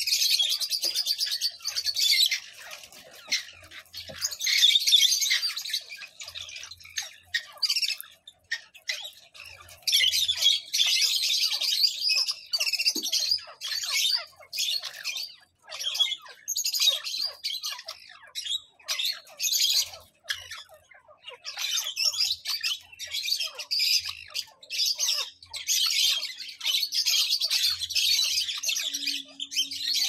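Grey francolins (teetar) calling: loud bursts of rapid, high, scratchy notes, each lasting one to three seconds, repeating every few seconds with short pauses between.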